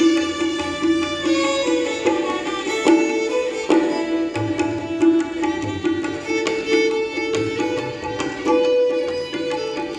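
Relaxing instrumental background music: plucked-string melody notes over a steady drone.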